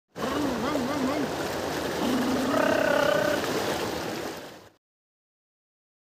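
Water rushing and splashing in a narrow concrete channel as a small bike is ridden through it, with a wavering, whoop-like voice over it. The sound cuts off suddenly just before five seconds in.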